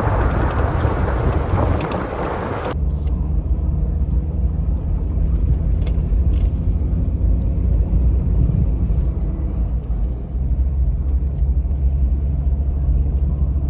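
Jeep driving along a forest road: a steady low engine and road drone. A loud rushing noise during the first few seconds cuts off abruptly.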